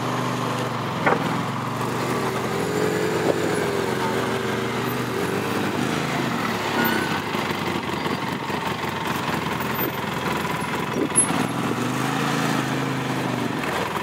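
Arctic Cat Wildcat side-by-side's engine working under load as it crawls up a steep rock ledge, its pitch rising and falling in a couple of swells as the throttle is worked, with a few brief knocks.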